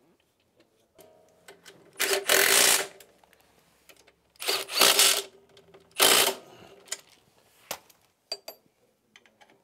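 Milwaukee Fuel cordless power tool running in three short bursts, the first two about a second long and the last shorter, driving a bolt into a snowmobile's front suspension A-arm. A few light clicks of metal parts follow near the end.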